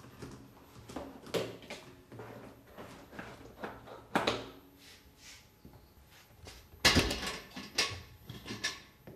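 Irregular metal knocks and clatters, several over the seconds, some with a short ringing after them, the loudest about seven seconds in: metal ash-filter parts and fittings being handled while the vacuum is switched off.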